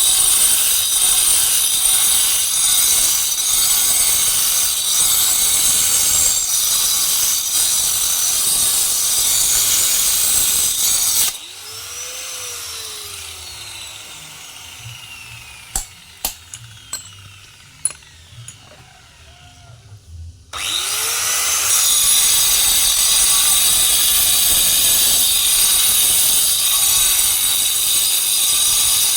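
Power grinder cutting or grinding stone with a loud, dense, high-pitched noise. About 11 seconds in it is switched off and its pitch falls as it spins down, followed by a few sharp knocks. About 20 seconds in it spins back up and cuts again.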